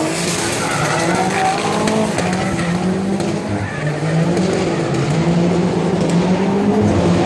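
Race car engine revving up and down repeatedly while its tyres squeal and skid through a drift.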